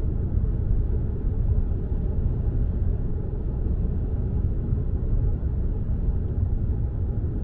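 A car on the move: steady low road and engine rumble with no changes or sudden events.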